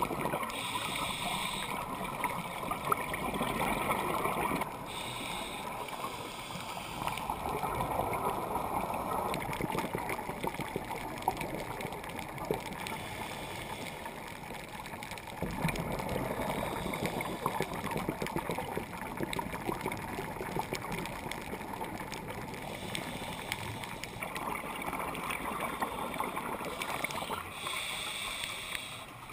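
Underwater scuba sounds: a diver breathing through a regulator, with a short hiss on the in-breath and long stretches of bubbling gurgle as exhaled air escapes. The bubbling swells and fades in slow cycles several seconds apart.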